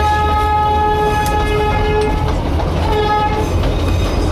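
Darjeeling Himalayan Railway narrow-gauge train sounding its horn, one long blast of about two seconds and then a short one, over the steady rumble of the running train heard from inside the coach.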